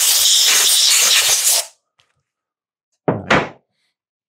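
Compressed-air blow gun on an air hose blasting dirt off a chainsaw: a loud, steady hiss that cuts off sharply a little under two seconds in. About three seconds in there is a single short thump.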